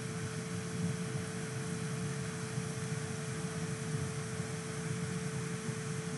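Steady ventilation noise from the lab's air handling, an even hiss with a constant low hum tone underneath.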